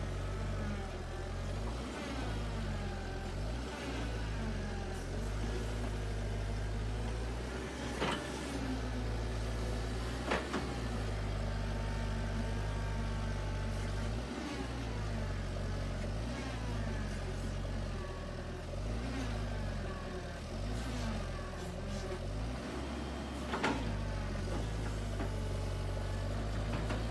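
Excavator's diesel engine running, its pitch rising and falling as the machine works, with a few sharp knocks now and then.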